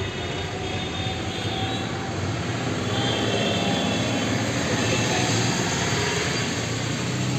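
Steady background noise with a low hum underneath, unbroken and even in level.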